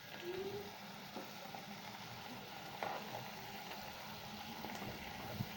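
Meat and diced onion frying in ghee in a pot, a faint steady sizzle, with a couple of light knocks about three seconds in and near the end.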